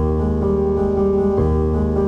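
Background music: piano or electric keyboard playing sustained chords that change about every second and a half.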